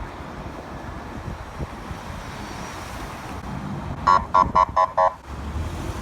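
Emergency vehicle's air horn giving five short blasts in quick succession, about four seconds in, over a steady rumble of traffic and wind.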